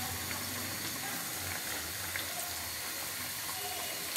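Chicken and potato curry boiling in a frying pan over raised heat: a steady hiss of simmering broth with faint bubbling pops.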